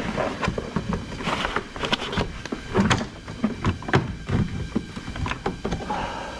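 Plastic interior door handle and door trim of a BMW E39 being handled and fitted: an irregular run of sharp clicks, knocks and rattles, the loudest about three and four seconds in.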